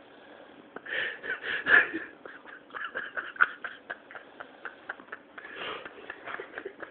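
A person snoring: rough, noisy breaths in three bouts, about a second in, around three seconds and near six seconds, with scattered small clicks.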